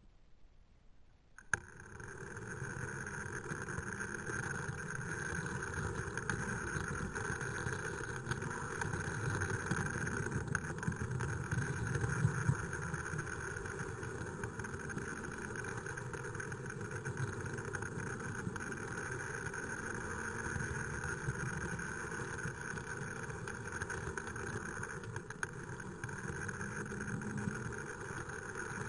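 Tri-ang OO-gauge model locomotive starting off with a click about a second and a half in, then running steadily along the track with an electric motor whirr over wheel rumble on the rails.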